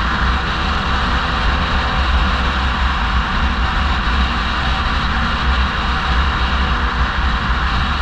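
A car driving along a road: steady low rumble of engine and tyres with a broad road hiss, unbroken throughout.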